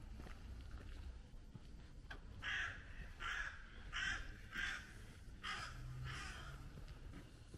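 A crow cawing six times: a quick run of four calls, then a short pause and two more.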